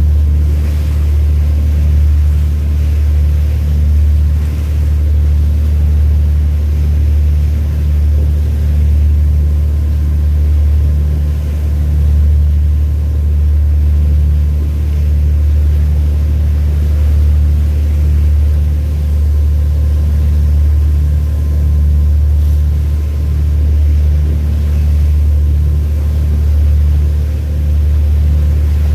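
Large ship's engine running with a steady low drone, slowly swelling and easing in loudness.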